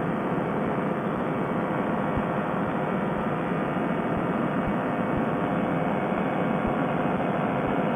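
Fresh Breeze Monster two-stroke paramotor engine and propeller running steadily at cruise power in flight, a constant, even engine noise with no change in pitch.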